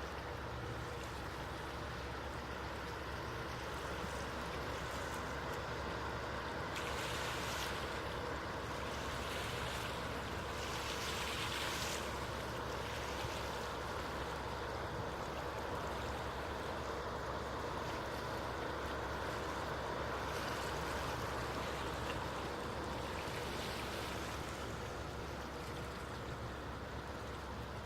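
Steady churning water and low drone of the cruise ferry Hellenic Spirit under way as it leaves port, with two brief hissier surges about seven and eleven seconds in.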